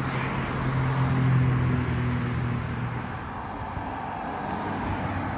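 Road traffic on a busy multi-lane road: steady noise of cars driving past, with a low engine hum that fades out about three seconds in.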